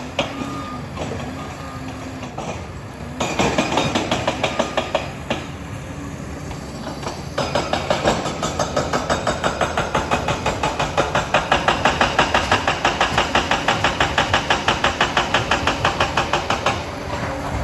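Liebherr 746 crawler dozer running, its steel tracks clanking in a rapid, even rhythm as it travels: a short stretch, a pause, then a longer stretch that stops near the end.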